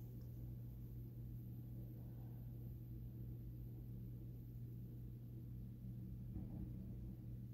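Faint, steady low hum with a low rumble beneath it, unchanging throughout.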